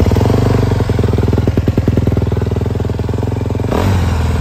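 2023 Honda CRF250R's single-cylinder four-stroke engine idling just after a cold start, warming up with a fast, even pulse. Its note changes slightly near the end.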